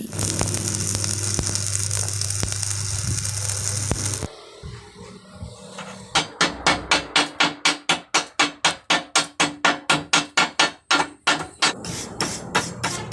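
Electric arc welding sizzling steadily over a low electrical hum, stopping about four seconds in. From about six seconds in, a fast, even run of hammer blows on metal, about four a second, lasting some six seconds.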